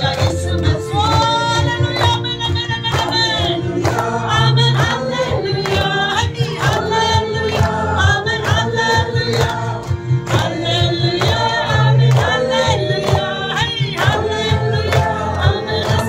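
A gospel worship song sung by many voices together, over instrumental backing with a steady drum beat and a bass line.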